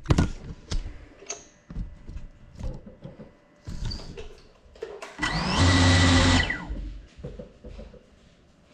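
FPV quadcopter crashed on a tiled floor: knocks and clatter at the start as it comes to rest, then its motors spin up in a loud whine for about a second and cut off.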